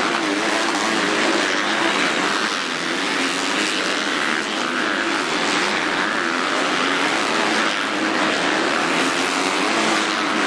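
Several MX2 motocross bikes racing close together, their engines revving hard. Several engine pitches rise and fall over one another as the riders work the throttle.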